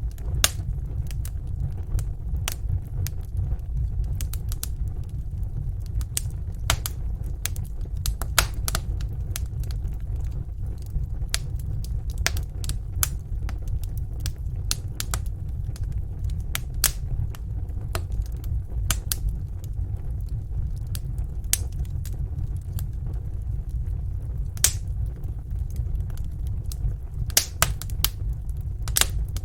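Wood fire crackling, with irregular sharp pops and snaps over a steady low rumble of the flames, and a quick run of several pops near the end.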